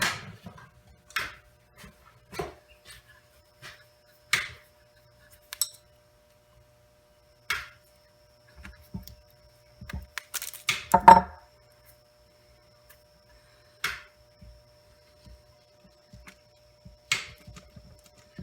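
Scattered sharp clicks, snips and small metal clatters of hand tools and wires being handled, as the ground wire is cut shorter and the pump motor's wires are connected. A louder clatter comes about eleven seconds in, over a faint steady hum.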